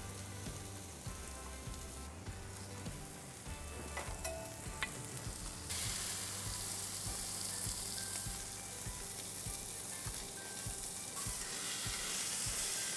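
Steak sizzling on a hot ridged grill pan: a steady frying hiss that gets louder about six seconds in, with a few light clicks.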